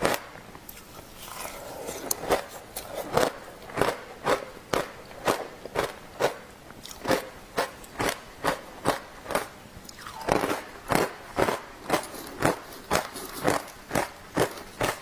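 Close-miked crunching of a frozen block of shaved ice coated in matcha powder as it is bitten and chewed, with sharp, separate crunches about two to three a second.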